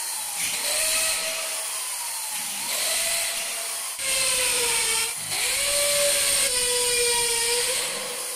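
Corded electric hand drill running in several runs of a second or two each, its whine shifting in pitch from run to run, drilling holes in a window frame to mount jalousie brackets.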